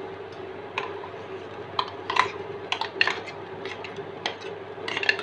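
Metal spoon scraping and tapping against a stainless-steel mixer jar while ground tender-coconut paste is knocked out into a pot of milk: a run of irregular clinks and scrapes, some sharper than others.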